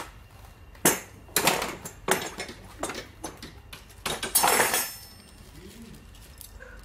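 Metal clinks and knocks as the seed planter's steel handle tubes and fittings are handled and fitted during assembly, several separate knocks in the first three seconds and a longer rattle about four seconds in.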